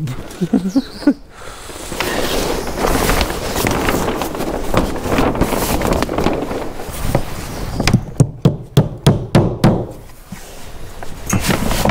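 Large plastic membrane sheet crackling and rustling as it is unfolded and pulled against a shed wall. About eight seconds in, a quick run of sharp knocks, around four a second.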